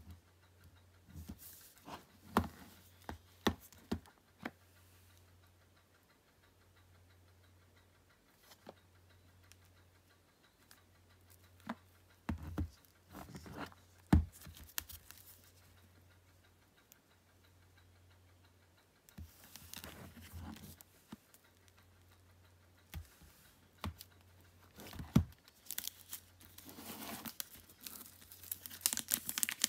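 Scattered clicks, taps and knocks of a boxed 4K Blu-ray collection and its packaging being handled, with two sharp knocks, one about halfway through and one near the end. Near the end the handling turns into a denser rustling of the packaging.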